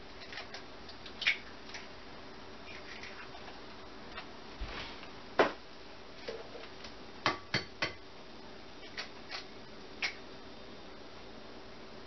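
Scattered sharp taps and clicks of eggs being cracked against a mixing bowl and worked into it. The loudest tap comes about five seconds in, and three come in quick succession a couple of seconds later.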